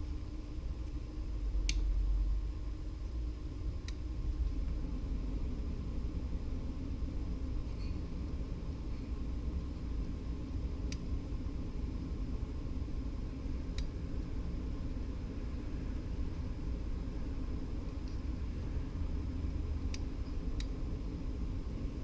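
A steady low rumble, with a few faint, sharp clicks scattered through it.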